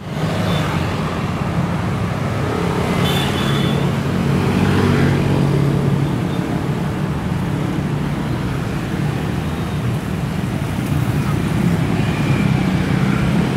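Road traffic: cars passing close by, over a steady low engine hum.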